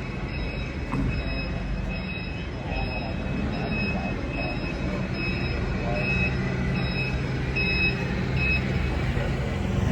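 Forklift reversing alarm beeping steadily, about one and a half beeps a second, over the low running hum of its engine, with faint voices in the hall.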